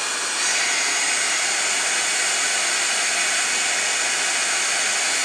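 Handheld embossing heat tool blowing a steady rush of hot air, melting a second coat of silver embossing powder on chipboard hearts. It grows a little louder about half a second in.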